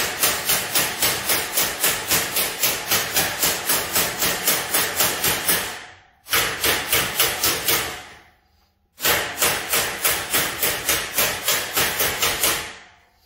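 Ball-peen hammer tapping quickly and evenly on a tin car grille, about five light blows a second, knocking down the high spot of a dent. The tapping comes in three runs with two short pauses, and each run tapers off before it stops.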